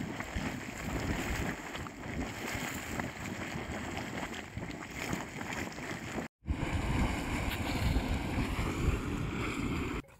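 Water churning and bubbling in a small boiling hot-spring vent, mixed with steady wind noise on the microphone. The sound breaks off briefly about six seconds in.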